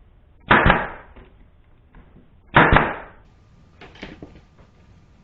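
Porter-Cable pneumatic brad nailer firing twice, about two seconds apart, each shot a sharp snap with a quick burst of air, driving brads into the wood. A few lighter clicks follow near the end.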